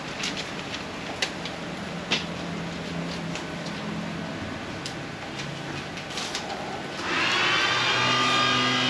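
Street ambience with a low engine hum from passing traffic and scattered sharp clicks. About seven seconds in, a louder steady sound with several held tones comes in.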